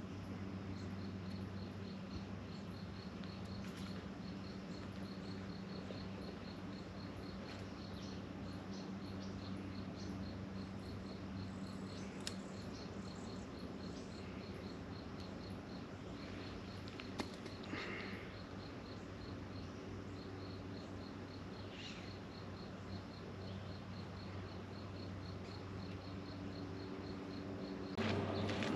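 Faint outdoor ambience with an insect, cricket-like, chirping in a steady even rhythm over a low steady hum. A few brief clicks, and a louder noise comes in near the end.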